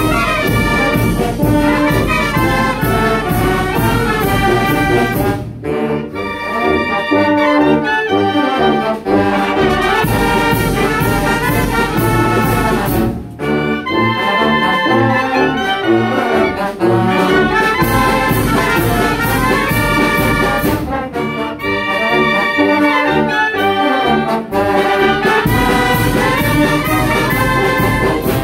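Oaxacan wind band (banda de viento) of clarinets, saxophones, trumpets, baritone horns and sousaphones playing a piece together under a conductor. The sousaphones mark a pulsing bass beat, and the music breaks off briefly between phrases a few times.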